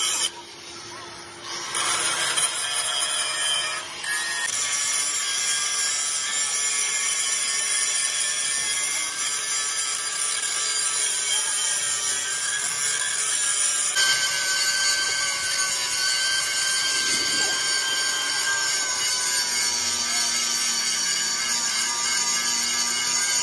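Angle grinder with a cutting disc cutting through a Hino truck's steel chassis rail, a steady high whine over a gritty hiss. It is quieter for the first two seconds, then cuts continuously, and its whine changes pitch about 14 seconds in.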